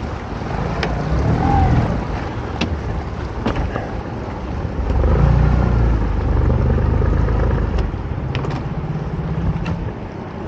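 Small fishing boat's engine running, louder for a few seconds about halfway through, with a few sharp knocks as a lobster pot is hauled in by rope.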